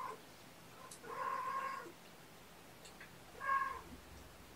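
A cat meowing: a meow trails off at the start, a second comes about a second in, and a shorter third just past three seconds.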